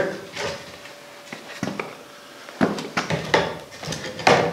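Handling noise of short wooden boards and footsteps on a concrete floor: a scatter of irregular knocks and scuffs, the loudest knock near the end.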